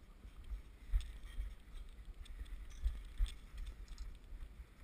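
Low rumble and irregular dull thuds from an action camera's housing being jostled as it moves, with wind on its microphone. The two loudest thuds come about a second in and near three seconds in.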